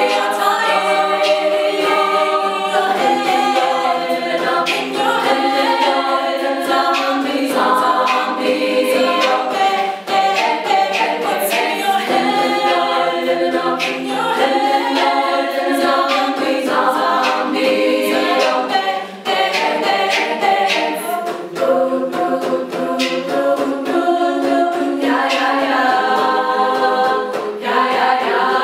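Women's a cappella group singing: a lead voice over sung backing harmonies from the rest of the group, with no instruments.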